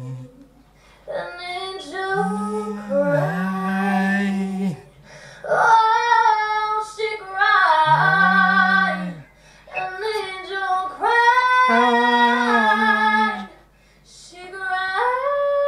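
A young woman singing a song solo in long held phrases, with short breaks between them. The loudest, highest notes, belted with a wide-open mouth, come in the middle.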